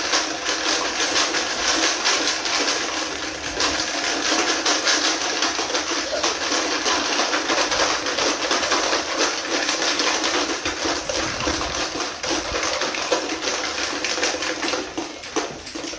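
Small plastic balls rattling inside two plastic Swinging Ball containers worn at the waist, shaken hard by swinging the hips: a dense, steady clatter of rapid small hits.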